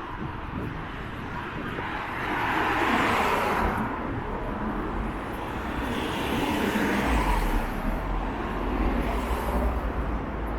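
Road traffic on a town street: cars going by, the tyre and engine noise swelling as each passes, about 3 seconds in and again from about 6 to 9 seconds, with a low rumble in the later pass.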